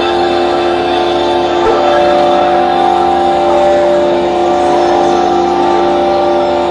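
Dense experimental drone music: several sustained tones layered over a noisy, grinding wash, with some of the tones stepping down in pitch about two seconds in.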